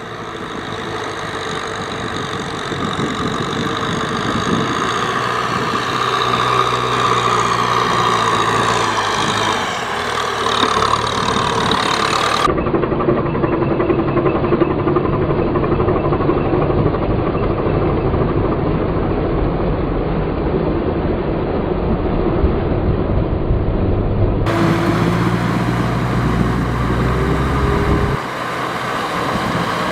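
Tractor engine running steadily throughout, with the sound changing abruptly about 12 and 24 seconds in.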